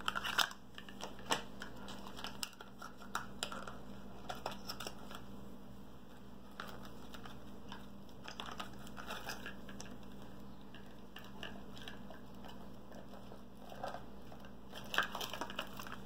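Scattered light clicks, taps and paper rustles of stationery being handled and packed back into a cardboard box, over a faint steady hum.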